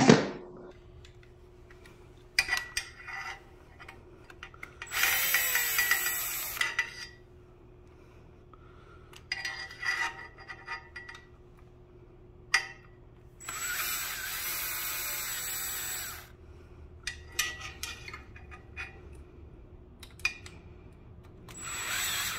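Power drill with a bit extension running in short runs to back out motorcycle bodywork screws: two longer runs of about two seconds each, one a quarter of the way in and one past the middle, with brief spurts and clicks between.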